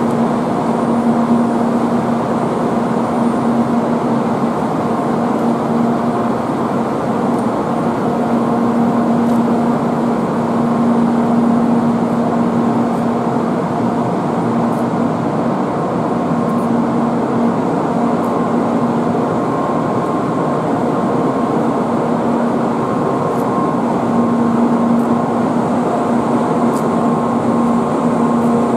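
Electric motor equipment of a Kyushu Shinkansen N700-series train humming steadily, a low steady tone with fainter higher tones over a wide hiss.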